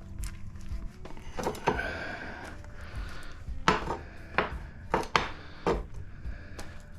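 Stripped steel parts of PTAC fan motors, with their copper removed, knocking and clinking together as they are gathered up by hand: a string of about eight sharp metallic knocks, some ringing briefly, in the middle of the stretch.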